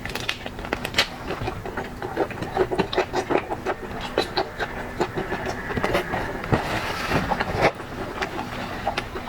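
Close-miked eating sounds: rapid, irregular crackling and clicking as shellfish are handled, shelled and chewed.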